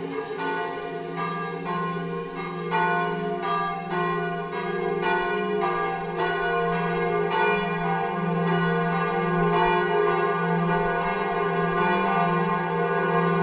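Church bells ringing in a quick, even run of strokes, a little over two a second, each stroke ringing on into the next, over a steady low drone.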